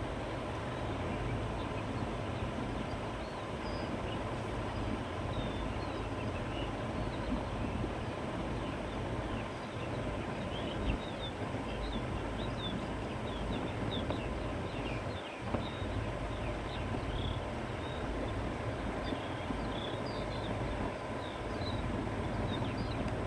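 Steady wind blowing across open grassland, with a low rumble underneath and scattered short bird chirps throughout.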